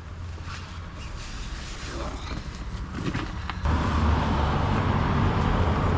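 Toyota 4Runner driving, a steady low rumble of engine and road noise that starts abruptly a little over halfway through, after a quieter stretch.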